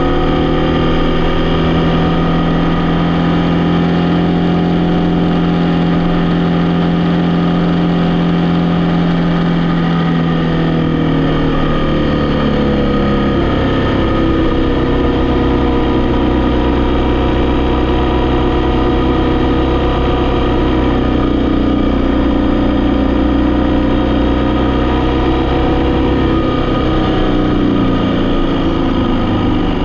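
Vehicle engine running steadily while driving. Its pitch falls about twelve seconds in, then shifts again near the end as the engine speed changes.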